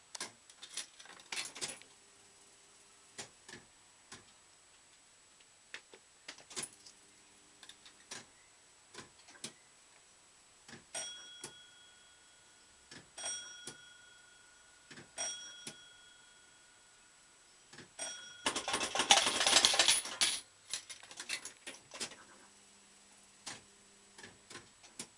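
Bell-Fruit Ten Up fruit machine in play: reels spinning with a low motor hum and clicking to a stop, sharp mechanism clicks throughout, and a run of electronic beeps in the middle. Near the end comes the loudest sound, a dense rattling clatter lasting about two seconds.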